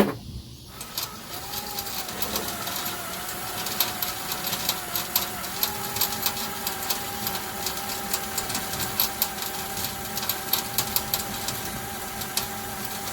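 Electric drill bit cutting into a rusted broken steel bolt: the drill motor starts about a second in and runs with a steady whine, its pitch stepping up slightly partway through, over a rapid scratchy ticking of the bit biting into the metal.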